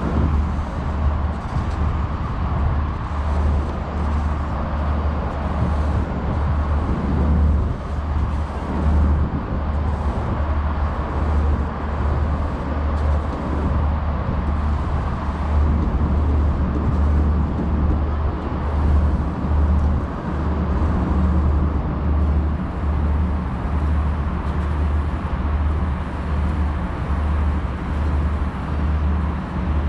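Steady road traffic noise: a continuous low rumble of passing cars with no single vehicle standing out.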